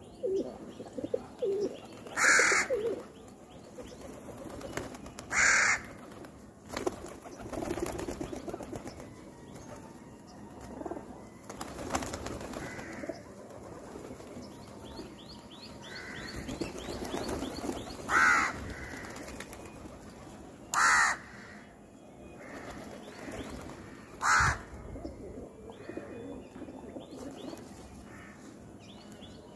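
Rock pigeons cooing low and continuously, broken by five loud, short bird calls of about half a second each, spaced a few seconds apart.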